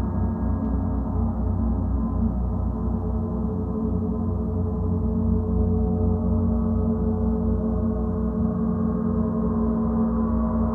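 A large gong sounding in a long, continuous wash of overlapping tones, the deep hum pulsing slowly and a brighter shimmer swelling a little near the end. No separate strike stands out; it is being played in sustained rolls.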